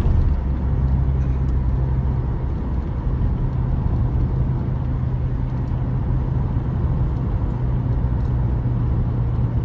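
Steady low drone of a car's engine and tyres heard from inside the cabin while driving along a highway.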